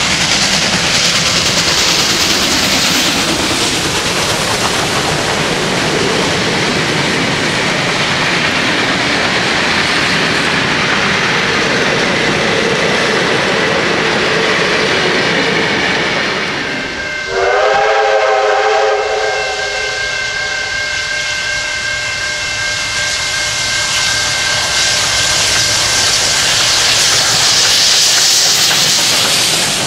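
Steam train headed by Victorian Railways R-class 4-6-4 locomotive R761 passing: a loud roar of exhaust, then its carriages rolling by with wheels clattering. About 17 seconds in, a steam whistle sounds several notes at once for about three seconds, and a higher steady tone holds for several seconds more while the train moves past.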